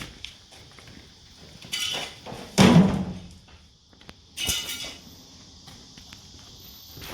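Intermittent metal clanks and knocks, with a few louder rattling bursts about two, two and a half, and four and a half seconds in.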